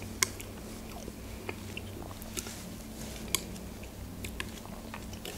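Close-miked eating of ice cream with raspberries: soft mouth and chewing sounds with a few sharp clicks, and a spoon scooping in a glass dish, over a low steady hum.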